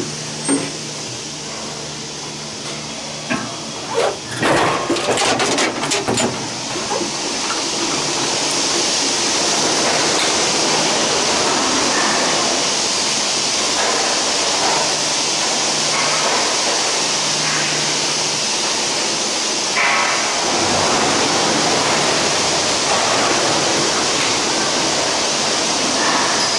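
A detachable gondola station's machinery runs with a steady loud rumble and hiss as cabins roll through on the station wheels and turn around the bullwheel. A flurry of clanks and knocks comes about four to six seconds in.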